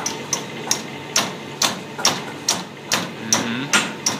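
Wire whisk beating cream cheese and eggs by hand in a stainless steel bowl, clinking against the bowl's side in a steady rhythm about two and a half times a second.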